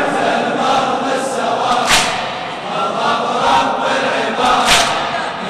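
Large crowd of male mourners chanting together in unison, a latmiyya chorus answering the reciter, with a couple of sharp slaps in the mass of voices.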